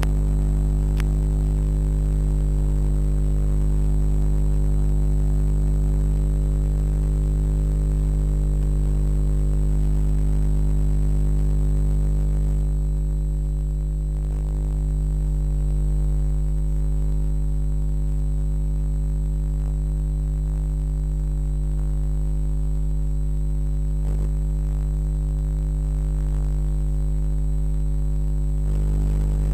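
A steady electrical hum and buzz: a low drone with a set of higher tones above it that never change pitch. The upper part thins out about 13 seconds in and fills back in near the end.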